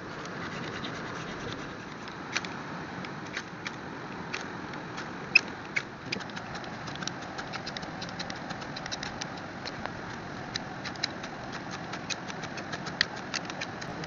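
Ferrocerium fire-steel scraped again and again with a metal striker, throwing sparks into a dry-grass tinder nest: a string of short, sharp scrapes, irregular at first and coming faster in the second half, over a steady background hiss.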